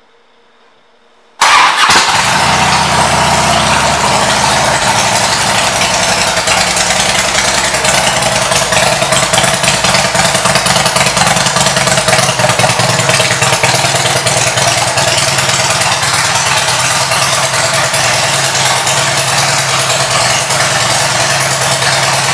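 2006 Harley-Davidson Ultra Classic's Twin Cam 88 V-twin starting about a second and a half in, then idling loudly and steadily through its aftermarket Rinehart exhaust pipes.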